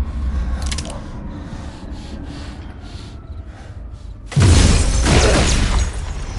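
Action movie trailer soundtrack: a low rumble of score, then about four seconds in a sudden loud crash that carries on.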